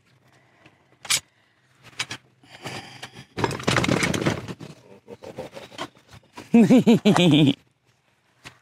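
Boiled crawfish, corn and potatoes spilling out of a stainless steel boil basket onto a newspaper-covered table: a few knocks of the metal basket, then a rattling, scraping spill lasting a second or two from about three seconds in. About six and a half seconds in, a loud drawn-out vocal exclamation.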